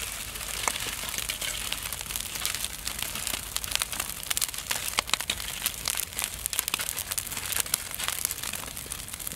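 Wood campfire crackling under a spit-roasting pig, a dense run of small pops and snaps as the fire catches.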